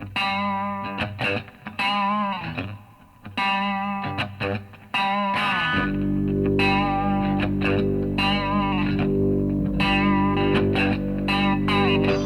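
Rock song intro without vocals: electric guitar through effects playing short bending, wavering notes, and about six seconds in a steady low held chord comes in beneath it.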